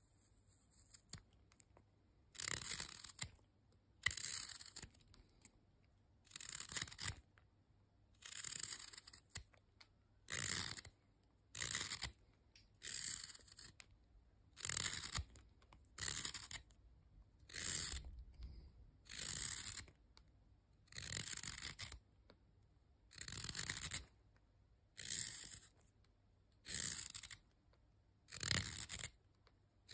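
Hook knife shaving curls of wood out of the bowl of a small carved wooden spoon: a steady run of short slicing cuts, about one every second and a half, with quiet pauses between them.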